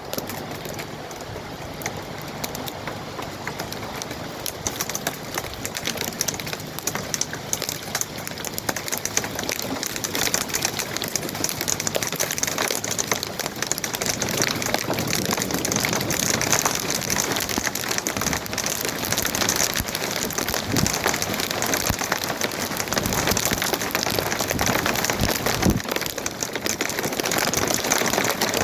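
Heavy rain pattering on a surface, a dense spatter of drops that grows steadily louder.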